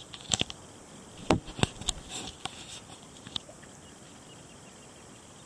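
A handful of irregular knocks and clicks over the first three seconds or so, then a faint steady hiss.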